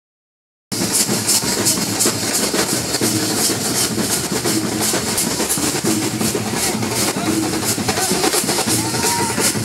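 Procession percussion band: drums and large brass cymbals playing a fast, steady rhythm, starting abruptly just under a second in.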